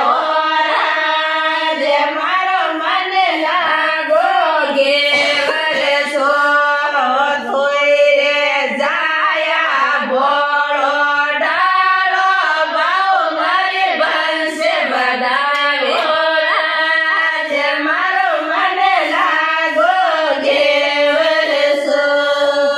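Women singing a Marwari folk song, a continuous melodic line with wavering held notes and no instruments.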